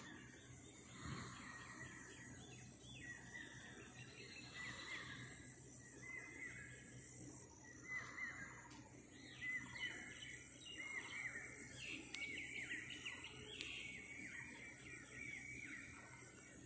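Small birds chirping faintly and repeatedly, the chirps coming thicker in the second half, over a faint steady low hum.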